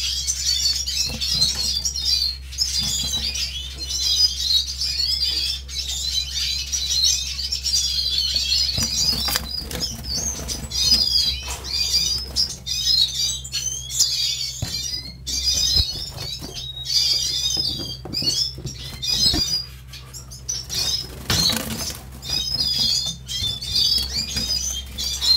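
Caged yellow-and-black finches singing: a continuous, fast, high twittering warble with a few short pauses, with occasional wing flutters and knocks over a low steady hum.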